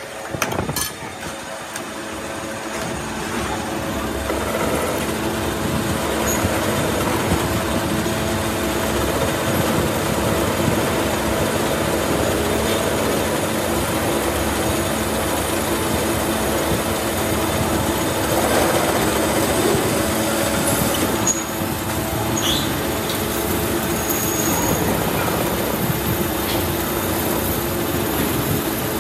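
Metal lathe turning a steel truck wheel stud, the cutting tool shearing off chips: a dense, steady cutting noise over a held hum. It swells over the first few seconds, then stays even.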